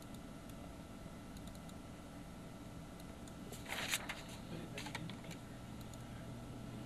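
Steady electrical hum with scattered light clicks of a computer being operated, and a short clatter of clicks about four seconds in.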